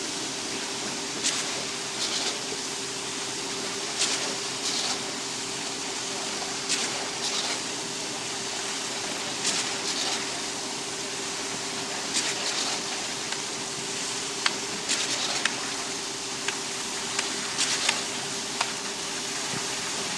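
Concrete pump running during a pour: a steady hum with short hissing clacks every second or two, often in pairs.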